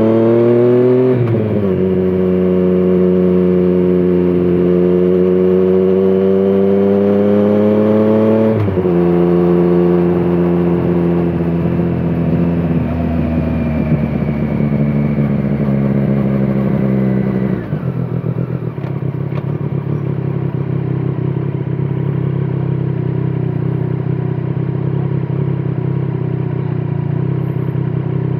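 2017 Triumph Street Triple 765 RS's 765 cc three-cylinder engine through a Scorpion Serket Taper carbon exhaust, pulling hard under acceleration. The pitch climbs, drops sharply at about one second and again at about nine seconds as it shifts up, then holds fairly level. Near eighteen seconds the throttle closes and the engine settles to a lower, steadier note.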